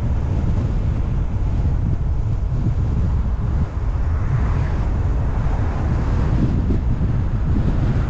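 Wind buffeting the microphone of a moving car, a steady low rumble with road noise underneath.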